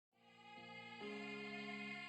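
Background music fading in from silence, with soft held chords that change twice in the first second.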